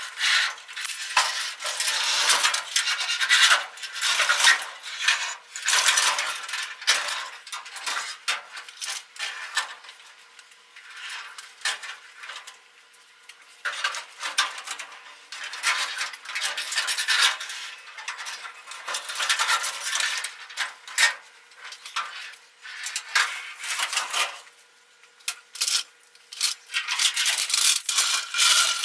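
Irregular metallic clinking and scraping, with a couple of quieter lulls, as steel tools and parts are handled.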